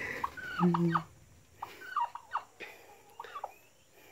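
Male domestic turkey gobbling: several short bursts of quick, falling, rattling notes.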